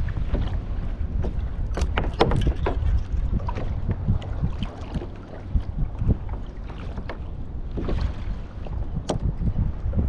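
Wind rumbling on the microphone aboard a kayak on choppy water, with scattered knocks and clicks: a cluster about two seconds in and a sharp one near nine seconds.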